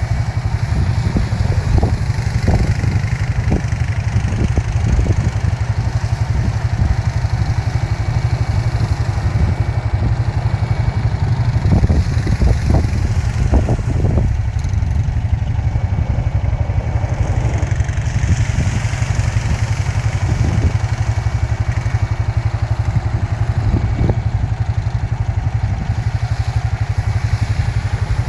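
Quad ATV engine running as the machine churns through a flooded, muddy patch, under a heavy, fluttering wind rumble on the microphone.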